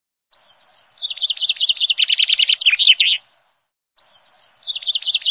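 Songbird song: a quick run of high chirping notes, about ten a second, that stops abruptly. A second, matching run starts about four seconds in.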